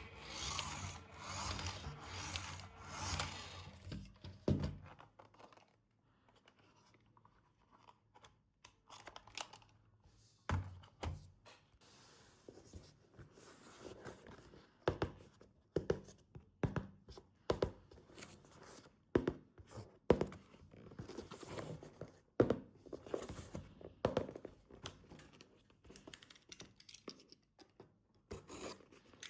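Handling noises of a toy being unboxed. Quick rubbing and scraping strokes fill the first four seconds or so. After a short lull comes a long, irregular series of sharp clicks and light knocks, like plastic parts and packaging being handled.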